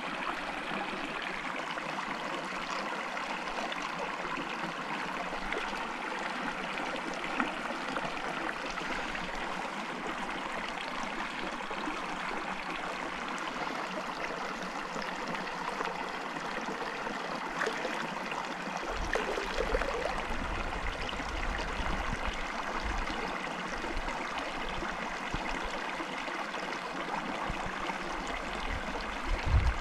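Shallow creek water running steadily over stones, with water swirling and sloshing in a plastic gold pan as it is panned. Low rumbling comes in from about two-thirds of the way through.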